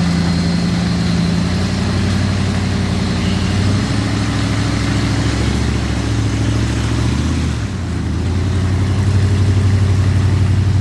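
Car engine running steadily. Its note climbs from about four seconds in, then drops abruptly about three-quarters of the way through and settles.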